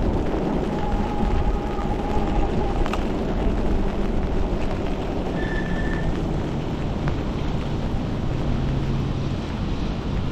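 Wind buffeting the microphone and tyres hissing on a rain-soaked road as an electric bike rides along, with a faint whine that fades out about two seconds in.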